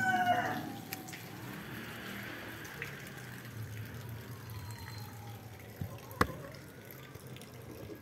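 A newborn kitten's high meow, falling in pitch and ending about half a second in. Then a low, steady hiss with one sharp click about six seconds in.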